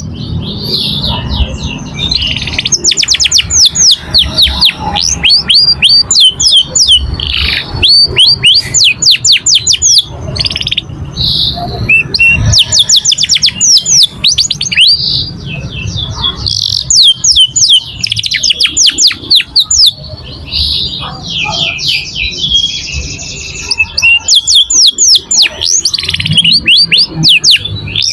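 Young domestic canary singing in long runs of rapid trills, fast repeated high sweeping notes broken by short pauses and buzzy rolls, over a low background rumble.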